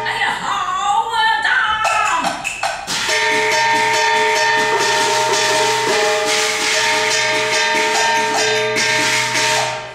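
Cantonese opera music: a gliding melodic line for the first couple of seconds, then, from about three seconds in, a long held note over a run of percussion strokes.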